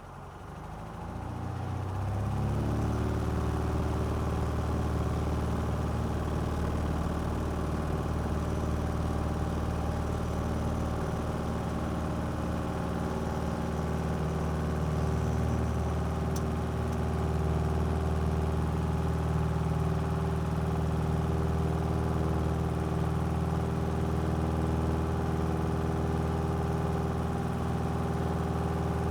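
Cessna 172's piston engine and propeller coming up to full takeoff power over the first couple of seconds, then running steadily at full power as a constant drone.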